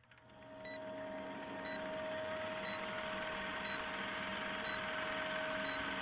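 Old-film countdown leader sound effect: a short high beep once a second over a steady hum and the rapid clatter and crackle of a film projector, fading in over the first second or two.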